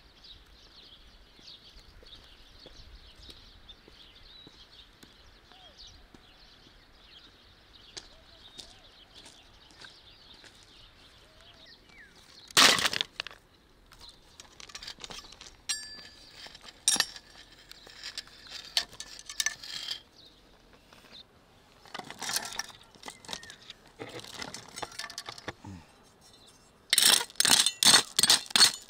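Scattered clinks and knocks of stones against each other, with one loud clatter about halfway, over a faint steady high hiss. Near the end a metal hand trowel strikes and scrapes into riverbed gravel about four times a second, the loudest sound.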